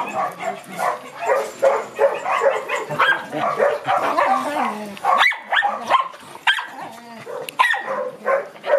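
A group of small dogs barking, yipping and whining, many short calls overlapping several to the second.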